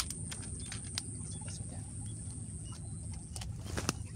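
Forest background: small birds chirping briefly now and then over a steady high-pitched whine, with scattered light clicks and a couple of slightly louder ones near the end.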